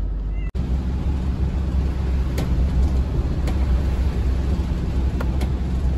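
Motorhome driving on a wet road, heard from inside the cab: a steady engine drone with tyre and road noise. The sound breaks off for an instant about half a second in, then carries on a little louder, with a few faint ticks.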